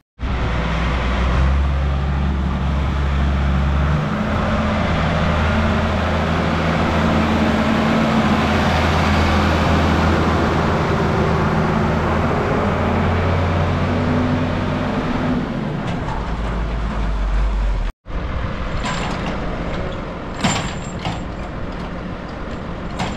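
Diesel tractor engines running, with a steady low engine note that shifts about four seconds in. It cuts off abruptly near the end, then another engine sound follows with a few sharp knocks.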